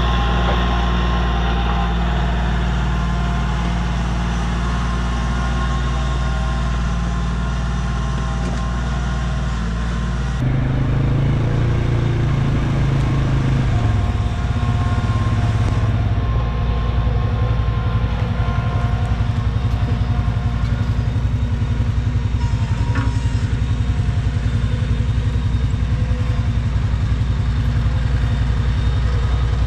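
Compact diesel tractor engine running steadily under load as it drags a back blade to grade a dirt road. About ten seconds in the sound switches to the engine of a quad bike idling and creeping along close behind the tractor, a low, evenly pulsing run.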